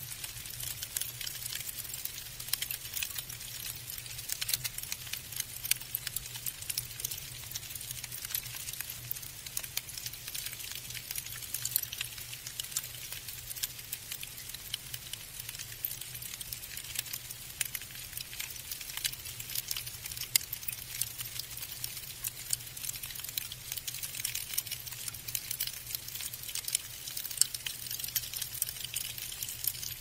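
Falling snow pattering: a dense, steady crackle of fine ticks, with a faint low hum underneath.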